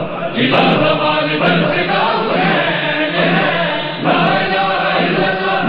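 A group of men chanting a Shia mourning lament (noha) together, with several voices in unison.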